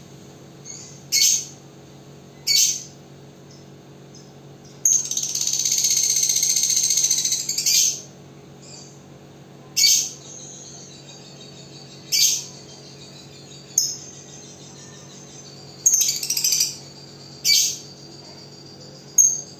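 Lovebirds calling: short, sharp, high shrieks every second or two. About five seconds in comes one long, unbroken chattering trill of some three seconds, the 'ngekek' song that fighter lovebirds are trained to lengthen.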